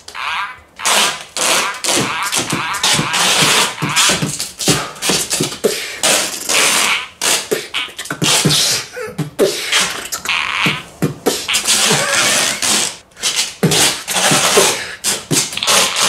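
Vocal beatboxing: a fast run of percussive mouth sounds kept up without a break.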